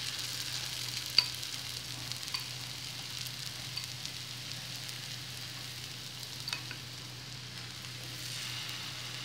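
Green chickpea and rice-flour batter fritters sizzling steadily in hot mustard oil on a flat griddle (tava), with a few light clicks, the loudest about a second in.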